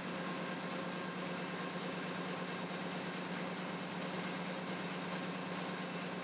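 Steady machinery hum of newspaper pressroom equipment, even and unbroken, with a low drone and a few faint steady tones above it.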